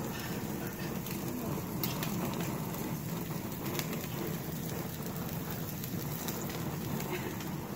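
Bone-in ribeye steaks sizzling on a hot gas grill: a steady crackling hiss with scattered small pops.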